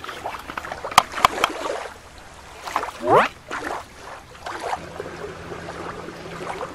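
Small splashes and clicks as plastic toy animals are handled and set down in shallow water, with a rising squeak about three seconds in.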